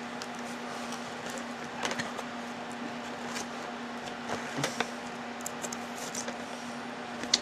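Scattered small clicks and scrapes of a clear plastic camera package being worked open by hand with a razor blade, over a steady low hum.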